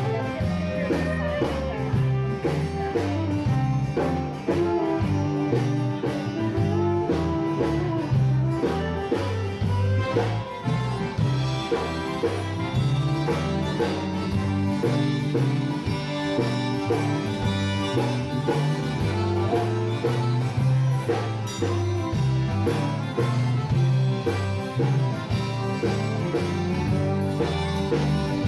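Background music led by guitar, with a steady bass line and beat.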